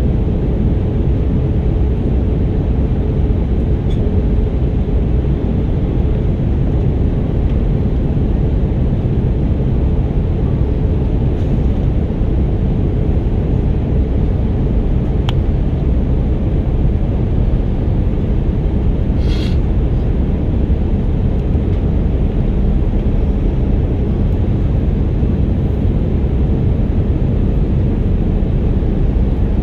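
Steady cabin noise inside an Airbus A319 airliner in flight: an even, loud rumble of engines and airflow through the fuselage, with a brief higher-pitched flutter about two-thirds of the way in.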